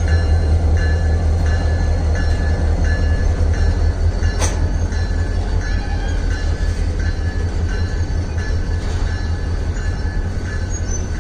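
Damaged freight hopper wagons rolling past close by, making a very strong noise: a heavy steady rumble with a short high squeak repeating about twice a second. One sharp clank comes about four and a half seconds in.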